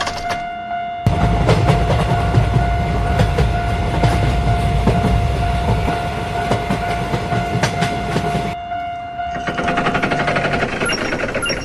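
A train passing a level crossing: a loud rumble with rapid wheel clatter over a long, steady horn tone. A fast-ringing crossing bell is heard before the train arrives and again after it has passed.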